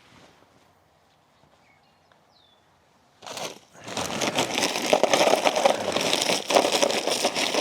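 Quiet for about three seconds, then a dense run of crunching and plastic crinkling as a bag of frozen watermelon is crushed and broken into pieces.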